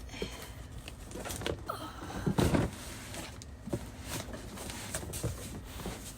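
Scattered knocks and rustling as perfume bottles and their packaging are handled and set down. The loudest is a cluster of knocks about two and a half seconds in.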